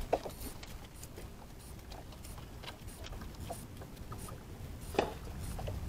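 Low rumble of wind and water around small boats on an open estuary, with scattered light clicks and knocks and one sharper knock about five seconds in.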